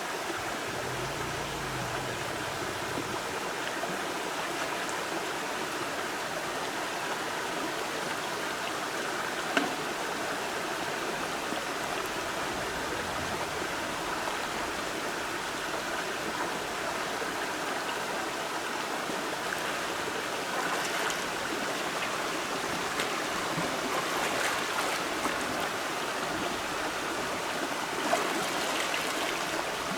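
Stream water flowing steadily, with a sharp knock about ten seconds in and a few more near the end.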